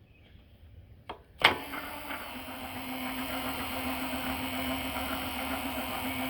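Power feed servo motor on the knee of a Lagun FTV-2 vertical milling machine switched on with a click about a second and a half in, then running steadily with a hum and a whirr as it drives the knee.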